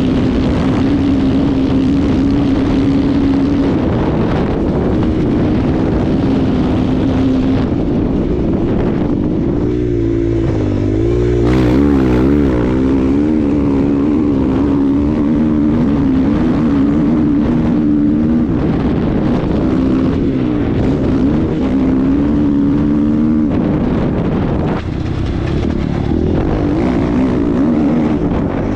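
KTM 500 EXC single-cylinder four-stroke dirt bike engine running hard at racing speed, its pitch stepping up and down every few seconds with gear changes and throttle. Wind rush on the microphone.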